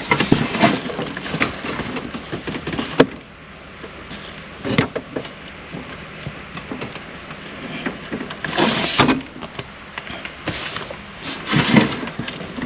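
Hands working small parts of a vehicle's ambient light sensor: a run of sharp clicks and taps, a loud single click about three seconds in, and scraping rustles around the middle and near the end as the part is tried in place.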